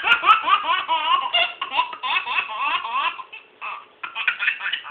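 Baby laughing, a rapid run of high-pitched laughs that breaks off briefly about three and a half seconds in and then starts again.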